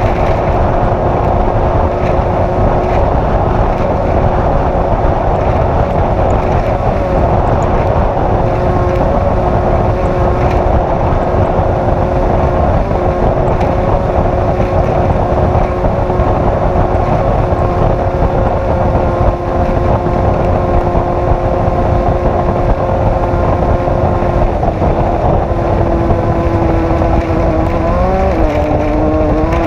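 Off-road race vehicle's engine running hard at a steady speed under a thick rush of wind and driving noise. Near the end the engine note drops and wavers as the throttle changes.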